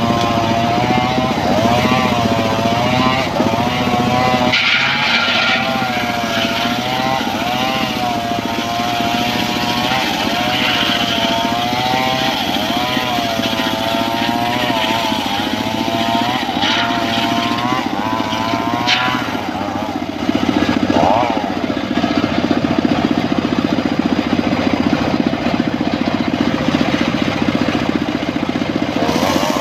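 Homemade engine-driven circular sawmill ripping an old mahogany log lengthwise. The engine runs steadily under the whine of the large blade, whose pitch sags and recovers again and again as it bites through the wood.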